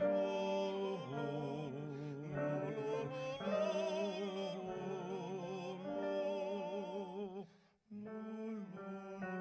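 Two male cantors singing a High Holidays liturgical duet, held notes with wide vibrato moving from pitch to pitch. The sound stops for a moment about three-quarters of the way through, then the singing comes back in.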